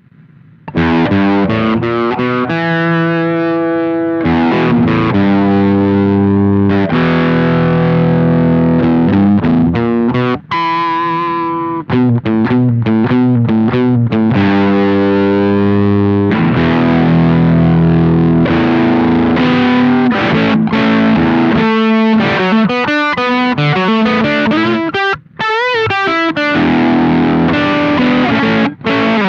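Electric guitar played through a Velouria FX Witchcraft distortion/preamp pedal: distorted chords ringing out in phrases. It starts about a second in, with a few short breaks between phrases.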